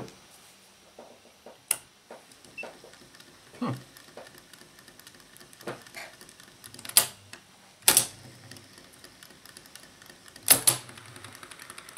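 Sparse sharp clicks and knocks from hands at work on an open reel-to-reel tape recorder chassis, a few seconds apart, over faint background hiss. The strongest come in a pair about seven and eight seconds in, and once more near the end.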